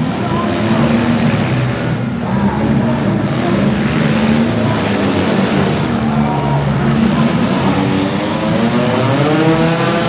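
Several demolition derby cars' engines running and revving together, their pitches rising and falling against each other, with a rev climbing near the end.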